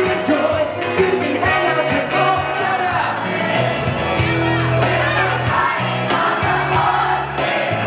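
Upbeat pop-rock song with a lead singer over a band and a steady drum beat, with crowd voices joining in.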